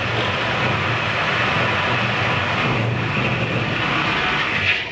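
Steam yacht's boiler being blown down: with the valve at the bottom of the boiler open, boiler pressure blasts scale and sediment out through the hull valve in a loud, steady rush of steam and water. The rush cuts off near the end as the valve is shut.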